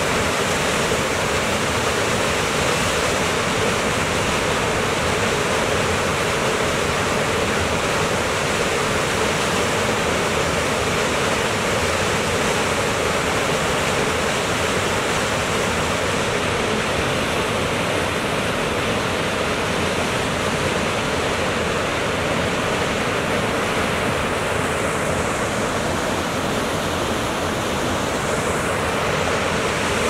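Waterfall pouring over a rock ledge into a plunge pool: a steady rush of falling and churning water with no breaks.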